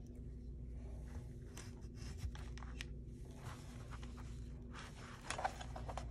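Paper being handled and shifted: soft rustles and light scrapes, with a louder rustle about five seconds in, over a steady low hum.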